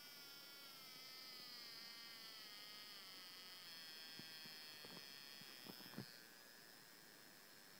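Faint high buzz of a Procomp 6AL ignition box firing a coil into a spark tester at a rapid rate. The pitch falls over the first few seconds as the spark rate is turned down, then holds steady. A few faint clicks about four to six seconds in.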